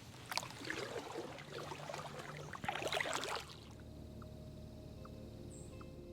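Kayak paddle strokes splashing and dripping in the water, with small knocks, for about three seconds. Then it quietens and soft background music with steady held notes fades in.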